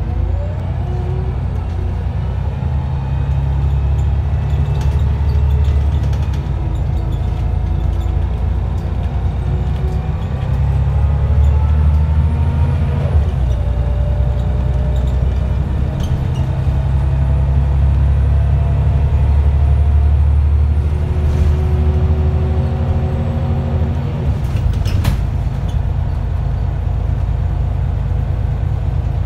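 Wright Scania Solar single-decker bus driving, heard from inside the saloon: a loud diesel engine rumble with a driveline whine that climbs in pitch and falls back a few times as it moves through the gears. A few sharp rattles come about twenty-five seconds in.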